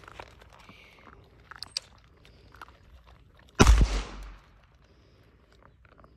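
A single shot from a .22 long rifle revolver about three and a half seconds in, sharp and loud with a short ring-out. Around it, faint clicks and rustles from puppies chewing food from metal pans.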